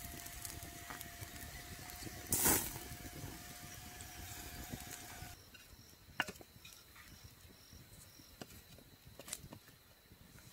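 Meat roasting over a wood campfire: a steady sizzle with a loud hiss about two and a half seconds in. It then turns quieter, with a few sharp crackles from the fire and insects chirping evenly in the background.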